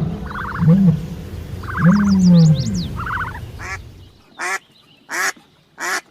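Animal calls: over the first three seconds, low calls with high, quick bird chirps above them, then four short, harsh calls, about two-thirds of a second apart.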